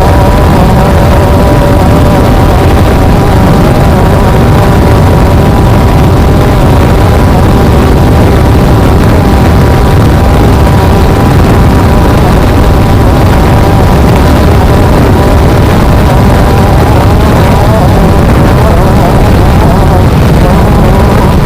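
Off-road race car's engine running hard at steady high revs, with heavy low rumble from the rough ride and wind on the microphone. The engine note wavers near the end.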